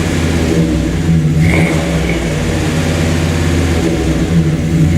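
1999 Dodge Ram's 5.9-litre 360 V8 running steadily through a newly installed Thrush Welded muffler: a deep, even exhaust note.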